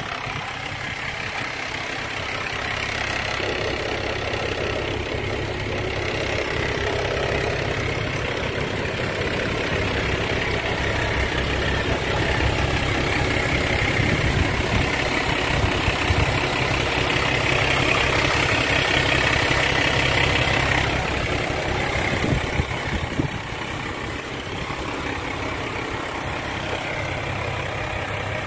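Isuzu 6HE1 straight-six diesel engine in a 1998 Isuzu Forward truck running steadily. It grows louder over the first dozen seconds and drops back about 22 seconds in, with a few short knocks at the drop.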